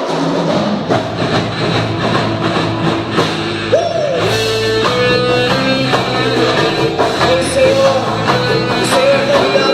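Christian rock band playing live, loud and steady, with a held lead melody line coming in about four seconds in.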